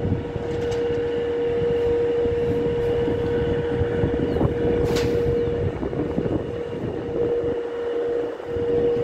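A motor vehicle's engine running steadily, a constant whining tone over a low rumble, with one sharp click about five seconds in.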